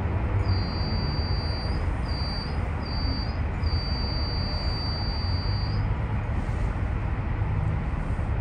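Steady low rumble of a moving vehicle, with a thin high-pitched tone that comes and goes four times during the first six seconds, the last stretch the longest.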